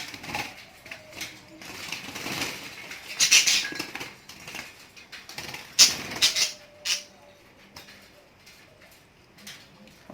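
Pet lovebirds squawking and chattering, with two loud shrill bursts at about three and six seconds in, among scattered clicks and rustles.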